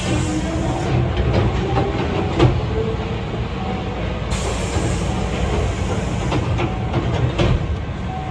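Railway sounds heard from inside a Hankyu 8300 series commuter train standing at a platform: a steady low rumble with a sharp click about two and a half seconds in and a few smaller clicks later, and a high hiss that comes and goes twice.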